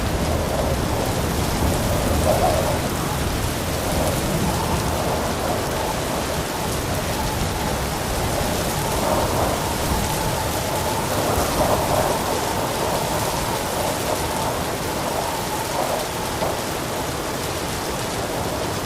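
Heavy rain pouring steadily, with low rolling thunder rumbling underneath.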